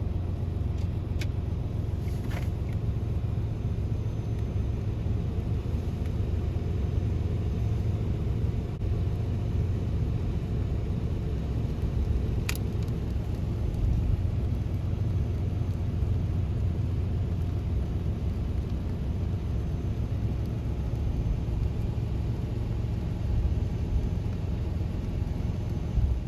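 Steady low rumble of a motor vehicle, with a few faint clicks and one sharper click about twelve seconds in.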